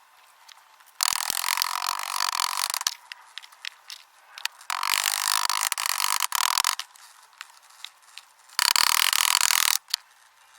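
Three bursts of a harsh, steady tool noise, each about one to two seconds long, with short quiet gaps and faint clicks between them.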